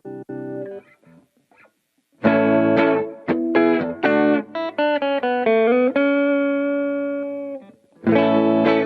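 Squier Classic Vibe Starcaster electric guitar played with its original stock wiring harness. A ringing chord stops, and a short pause holds a few faint notes. Then comes a strummed chord and a line of single notes with one note bent upward, a held note, and another strummed chord near the end.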